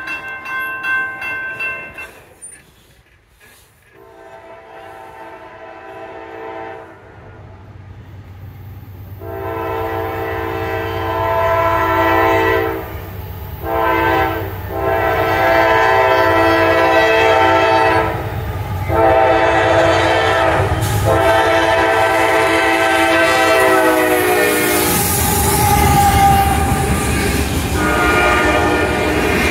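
CSX freight locomotive's multi-note air horn sounding a series of long blasts with a short one between, growing louder as the train approaches the grade crossing. A crossing bell rings at the start. Near the end the low rumble of the locomotives and rolling freight cars takes over as the train reaches and passes the crossing.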